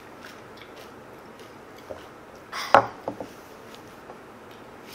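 Quiet snack-table sounds: faint small clicks and crunching of snacks, with one sharp knock about two and a half seconds in, followed by a couple of lighter clicks.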